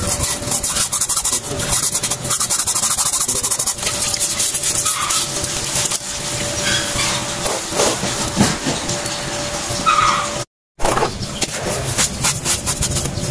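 Continuous rubbing and scraping with many small clicks, from hands working at a drum brake backing plate and wheel cylinder. It drops out briefly about ten and a half seconds in.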